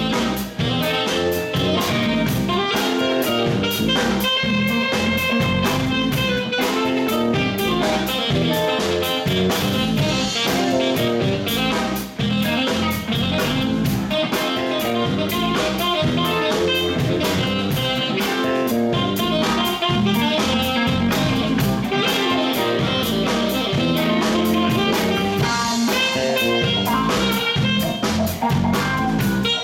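A live band playing an instrumental passage: electric guitar and drum kit, with a saxophone.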